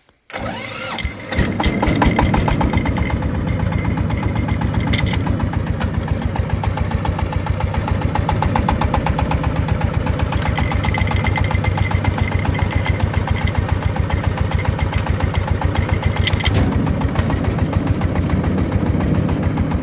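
Single-cylinder diesel engine of a two-wheel tractor starting up about half a second in, then running with a steady, rapid chugging beat.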